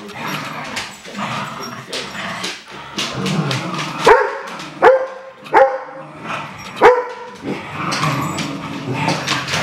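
Dogs playing tug-of-war with a toy: four loud, sharp barks in quick succession about four to seven seconds in, amid scuffling.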